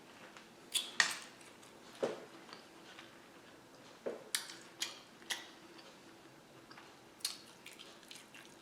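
Eating utensil clinking against a dish: a dozen or so short sharp clicks, spaced irregularly, over a faint steady hum.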